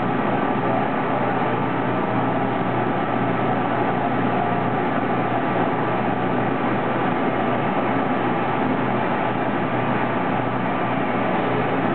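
Crossflow filter's circulation pump running steadily while caustic cleaning solution is pushed through the membrane housings: an even rushing noise with a low hum and a few faint steady whining tones.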